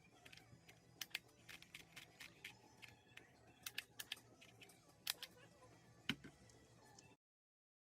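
Scattered sharp plastic clicks and snaps of a handheld DYMO embossing label maker being worked, the letter dial turned and the handle squeezed to emboss the tape. The sound cuts off suddenly about seven seconds in.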